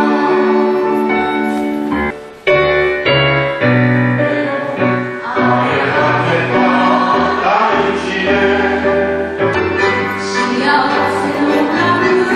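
Music: a choir singing sustained notes with instrumental accompaniment, with a brief dip a little over two seconds in before it carries on.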